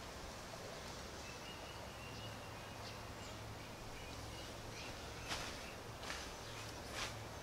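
A person moving across a tent floor and stepping toward the door: three short, sharp rustles of the tent fabric about five, six and seven seconds in. Under them is steady outdoor background noise, with a faint bird whistle from about one to three seconds in.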